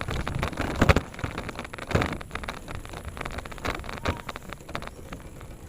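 Bicycle ridden over rough ground: irregular rattles and knocks with wind on the microphone, growing quieter toward the end.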